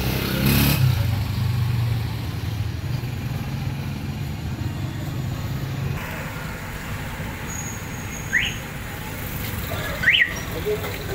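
Steady low rumble of road traffic, heavier in the first half, with three short high chirps that sweep upward, spaced over the last few seconds.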